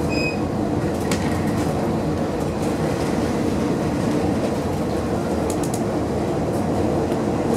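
Trieste–Opicina tram running along its track, heard from inside the car: a steady low rumble with a constant hum and a few sharp clicks from the wheels and track. A short high squeal sounds right at the start.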